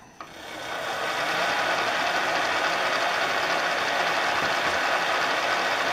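Machine spindle starting up and running steadily with a twist drill in its chuck, rising to full speed over about the first second, ready to drill a pilot hole in steel angle iron.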